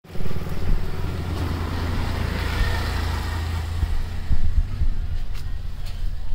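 Motor vehicle engine running close by: a low rumble, with a hiss that swells and fades around the middle.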